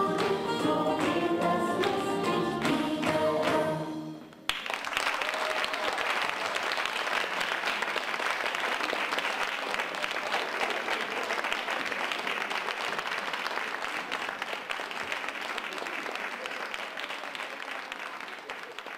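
Music ends about four seconds in, and an audience breaks into applause that runs on steadily and slowly fades near the end.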